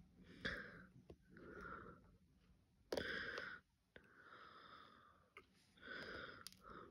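Faint breathing and sniffing, nasal from a head cold, coming about once a second with the strongest breath about three seconds in. A few light clicks come between the breaths, from a diamond-painting drill pen pressing resin drills onto the canvas.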